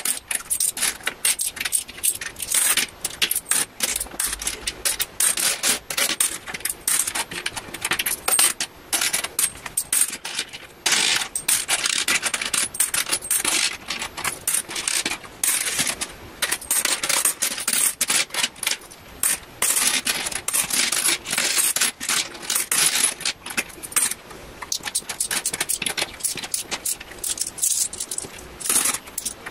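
British £1 and £2 coins clinking against one another and sliding on a desk as they are sorted by hand: a rapid run of metallic clicks with short pauses.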